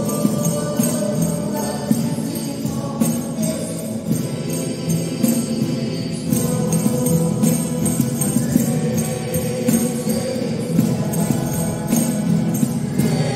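Church music with jingling percussion keeping a steady beat over a sustained, held accompaniment.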